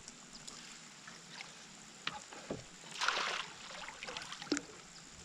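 Faint water sounds around a small boat while a hooked bass is played, with scattered light knocks and a short splash-like burst about three seconds in.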